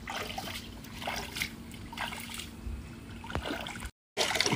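Shallow water trickling along a narrow stone-lined ditch, with small splashes about once a second from feet and hands moving in it. The sound drops out for a moment near the end.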